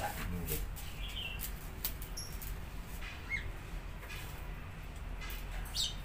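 A few short, scattered bird chirps, with sharp clicks between them.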